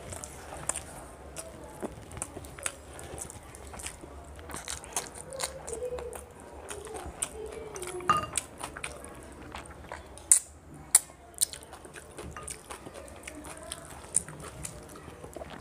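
Close-miked chewing of a mouthful of rice: soft wet mouth clicks and smacks, with a couple of sharper, louder clicks about ten and eleven seconds in.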